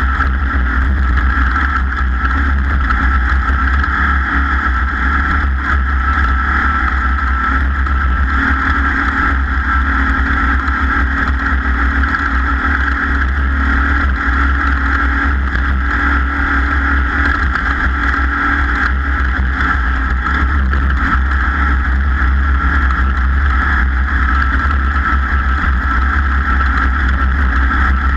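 Off-road race vehicle running at speed, heard from on board: a loud, steady drone of engine and wind noise over a deep rumble.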